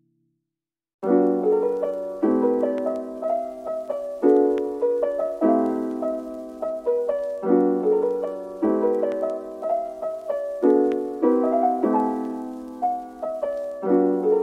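Background piano music: after a brief silence, a new piece begins about a second in, with chords struck about once a second.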